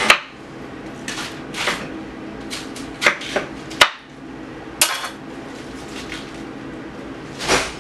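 Kitchen knife slicing through a dense head of cabbage and knocking on the cutting board in about nine irregular strokes, with a pause of a couple of seconds before the last one.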